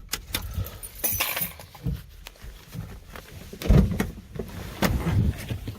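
Scattered clicks, rattles and knocks from handling around a car with its engine off, with two louder low thumps about four and five seconds in.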